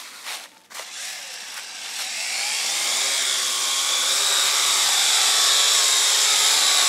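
Small toy quadcopter's electric motors and propellers whining, getting louder as it lifts off the ground about two seconds in, then a steady buzzing whine as it hovers low.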